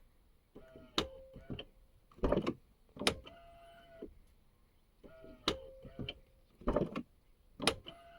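Aftermarket soft-close door latch on a Porsche Cayenne door pulling the door shut, three times: a latch click, then its electric motor whirring steadily for under a second, ending in a click. Sharp clicks and knocks come between the cycles.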